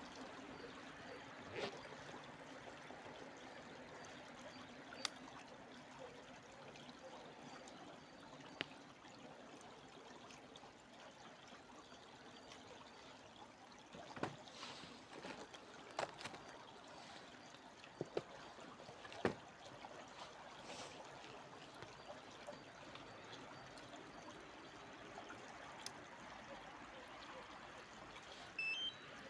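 Faint, steady trickle of a stream or river, with scattered sharp clicks.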